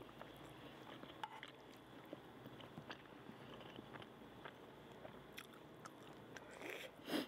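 Quiet eating sounds: faint chewing with small mouth clicks while noodles are eaten, then a short louder slurp of noodles near the end.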